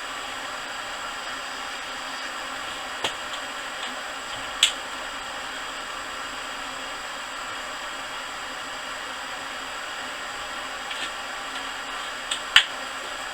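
Steady hiss of a Coleman Focus 3 propane heater running, with a few short sharp clicks and taps of small metal parts being handled, the loudest about four and a half seconds in and a pair near the end.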